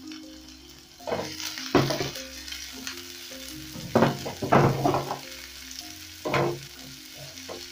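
Chopped red onions sizzling in hot oil in a non-stick frying pan, stirred with a silicone spatula that scrapes and taps against the pan in several quick strokes, clustered about a second in and again past the middle.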